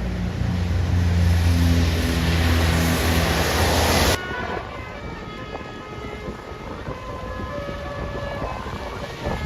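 Tour bus engine running loud and close under a rushing hiss, cut off abruptly about four seconds in. After that comes quieter road-traffic noise with a few faint short tones.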